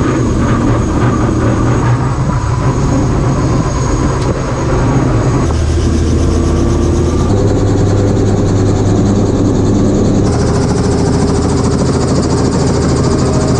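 Tour helicopter's engine and rotor running steadily, heard from on board around takeoff; the pitch of the drone changes abruptly a few times.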